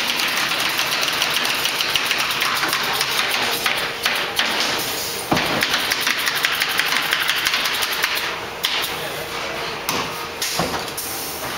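Canvas-stretching machine work in a production shop: rapid clicking and tapping over a faint steady hum, with two sharp heavy knocks, one about halfway through and one near the end.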